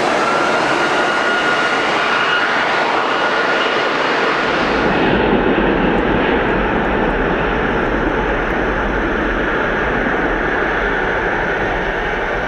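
Jet airliner engines running: a steady rushing noise with a faint high whine that rises slightly. About five seconds in, the sound changes abruptly: the highest hiss drops away and a low rumble comes in.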